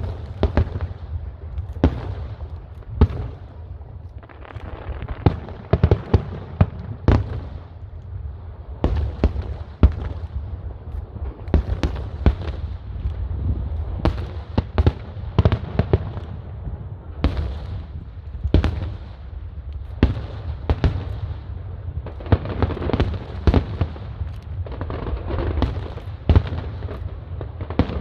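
Fireworks display: a rapid, irregular series of loud bangs from bursting aerial shells over a continuous low rumble, with stretches of crackling between them.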